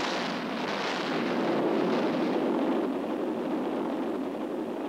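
Atomic bomb explosion: a sudden blast followed by a long, steady rush of rumbling noise that slowly fades.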